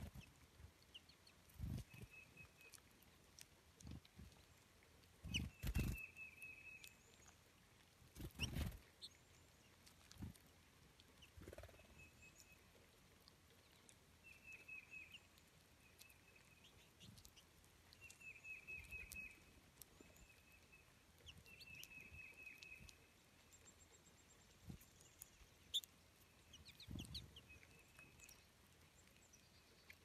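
Faint chattering calls of American goldfinches: short, fast trills repeated every few seconds, with a few soft thumps, the loudest about six and eight and a half seconds in.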